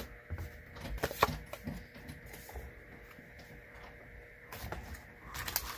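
Magic: The Gathering trading cards being handled, giving light clicks and taps in the first second or so and again near the end, with soft rustling between.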